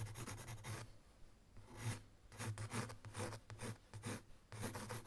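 Scratchy writing or drawing strokes: a quick run of strokes, a pause of about a second, then a longer series of short strokes, over a steady low hum.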